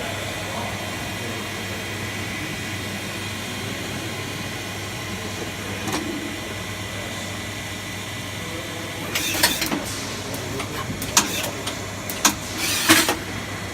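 Citizen K16VII CNC Swiss-type lathe under power: a steady hum with a few faint high tones. From about nine seconds in come a cluster of short, sharp noises, the loudest near the end.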